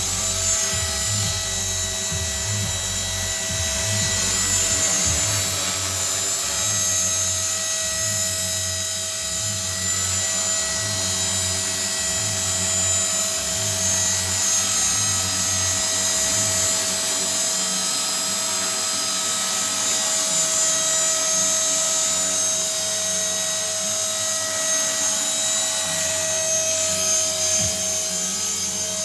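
Tarot 450 Pro electric RC helicopter in flight: its brushless motor and gear train give a steady high whine over the whir of the spinning main and tail rotors.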